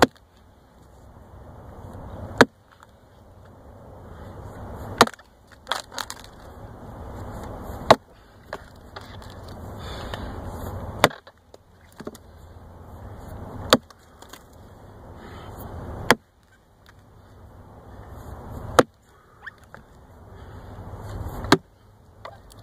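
An 8-pound splitting maul chopping into a dried cedar log: eight hard blows, one every two to three seconds, each preceded by a rising rush of noise as the maul swings down, with a few smaller knocks after some of the strikes.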